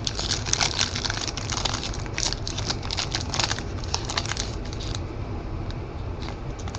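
Foil wrapper of a trading-card pack crinkling and crackling as it is handled and worked open along its seam; the crackles are dense for about five seconds, then thin out.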